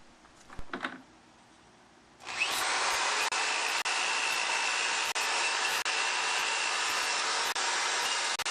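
Electric power tool starting about two seconds in and then running steadily, stripping rust from a steel bicycle frame; the steady sound is broken by several very short gaps.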